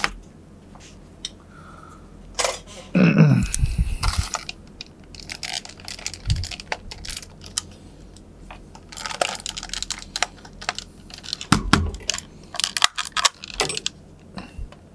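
Small steel screwdriver bits rattling in a plastic precision bit case and clicking as one is fitted to a screwdriver handle: scattered clicks and light rattles, with a heavier knock about three seconds in.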